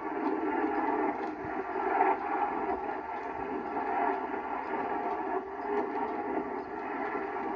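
Muffled soundtrack of a VHS tape playing through a television speaker: a steady, noisy sound with no narration.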